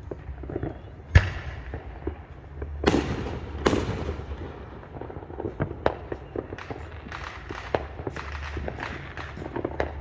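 Fireworks and firecrackers going off: a sharp bang about a second in, two heavier booms with long echoing tails around three and four seconds, then a rapid scatter of pops and crackles over a low steady rumble.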